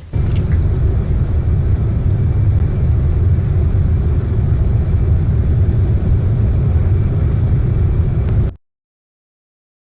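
A motor running loudly and steadily with a deep rumble, cutting off suddenly near the end.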